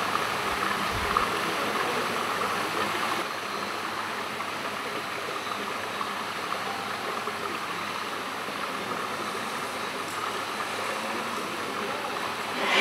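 Steady rush of running water in an indoor saltwater fishing pond, dipping slightly about three seconds in, with a short louder swell at the very end.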